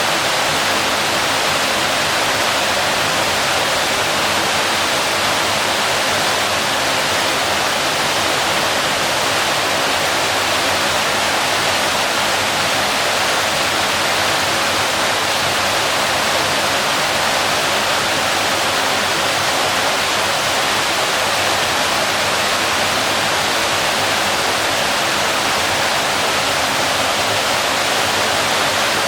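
Waterfall: water falling steadily in a continuous, even rush.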